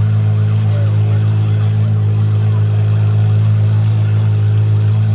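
Car engine idling steadily with a deep, even hum and no revving, faint crowd chatter behind it.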